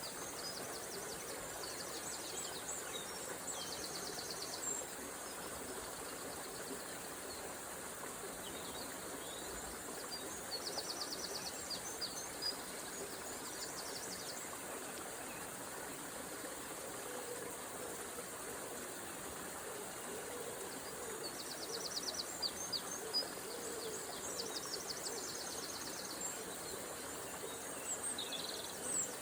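A river running steadily, with songbirds singing over it in three bouts of fast, trilled phrases.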